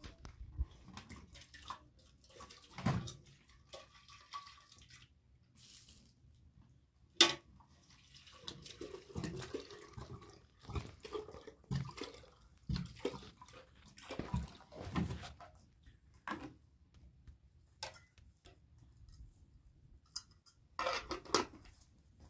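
Water poured from a plastic jerrycan into a black kettle in several spells, with knocks and clinks as the kettle and can are handled; one sharp knock stands out about seven seconds in.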